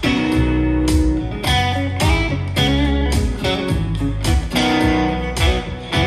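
Guitar music with plucked notes over a heavy, sustained bass line, played back through a Harman Kardon Aura Studio glass-dome speaker.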